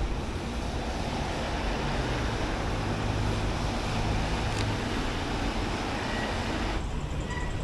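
Steady hiss of heavy rain on a wet street, with a low wind rumble on the action camera's microphone. The sound cuts off suddenly near the end.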